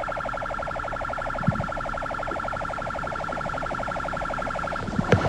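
Electronic police siren sounding a fast pulsing warble over a steady high tone, cutting off abruptly near the end.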